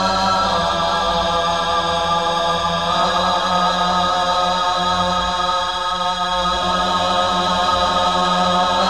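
Hindi film song music: choir-like chanting voices on long held chords over a steady low drone, the chord shifting about three seconds in.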